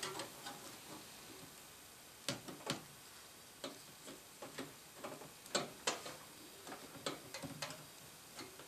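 Scattered light clicks and taps, about a dozen at uneven intervals, as a graphics card is handled and manoeuvred into position inside a PC case.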